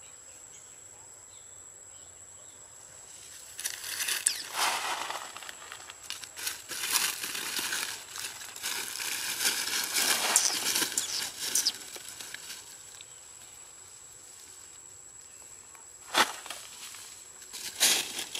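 Dry leaf litter rustling and crunching in uneven bursts as a baby macaque scrambles over it, starting a few seconds in and dying away, then two sharp crackles near the end.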